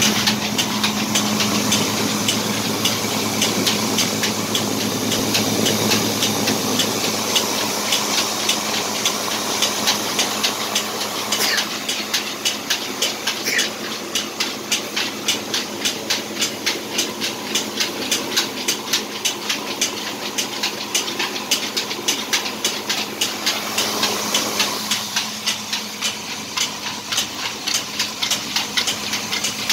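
Motor-driven grain mill running while grinding maize into flour: a steady hum under a fast, even clatter from the grinding head, easing slightly about a third of the way in.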